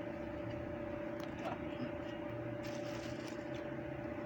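Steady hum of machinery running in a woodworking workshop, a constant drone holding two even tones, with faint crinkles of a plastic bag as flatbread is handled.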